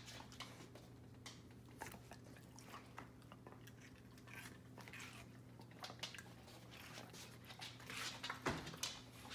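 Faint chewing and crunching from a dog, with scattered short clicks, over a steady low hum.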